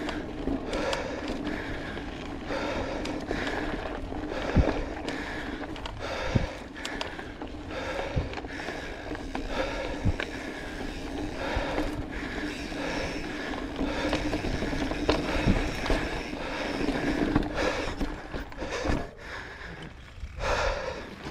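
Mountain bike riding a rough dirt singletrack: a steady rattling hum of tyres and bike over the ground, with sharp knocks from bumps every second or two.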